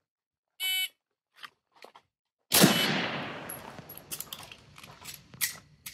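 A shot-timer beep, then about two seconds later a single loud handgun shot whose echo dies away over the next few seconds. A few fainter sharp cracks follow near the end.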